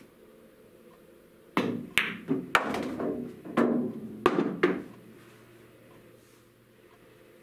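A pool shot: the cue strikes the cue ball about a second and a half in, then a quick string of sharp knocks and clacks over about three seconds as the balls collide and bang around the table, with the object ball dropping into a pocket.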